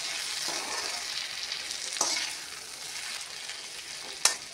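Potatoes and lobia beans sizzling in oil and masala in an iron kadhai while a steel spoon stirs and scrapes them, with a sharp knock of the spoon on the pan about two seconds in and again near the end.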